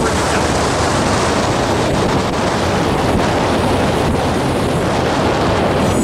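Double-stack intermodal container cars rolling past close by: a loud, steady rumble and rush of steel wheels on the rails.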